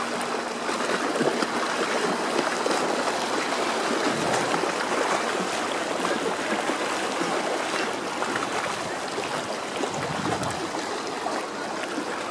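Steady rush of running water, an even noise with no distinct splashes.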